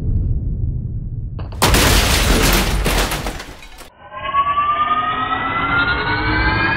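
Electronic music with sound effects: a deep bass boom and rumble, then a loud crash-like burst of noise lasting about two seconds, then a steadily rising, siren-like synth riser.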